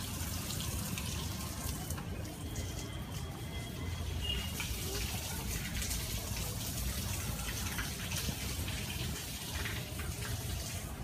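Steady rushing of water, with a low rumble underneath.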